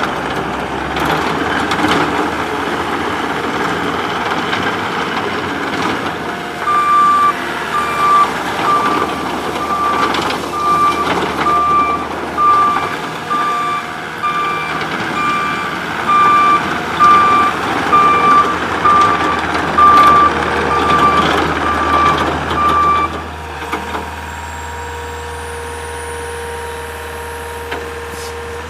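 Takeuchi TL240 compact track loader running and working, its engine and hydraulics loud and uneven. The reverse alarm beeps steadily from about seven seconds in until around twenty-three seconds. The machine then settles to a quieter, steady idle.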